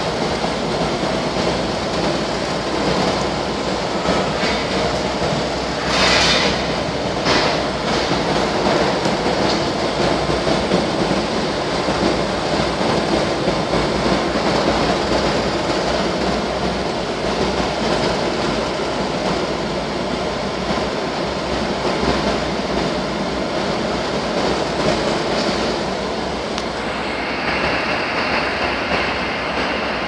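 Screw continuous carbonization furnace plant running: a steady, loud machine rumble and hiss, with two short bursts of hiss about six and seven seconds in and a higher hiss joining near the end.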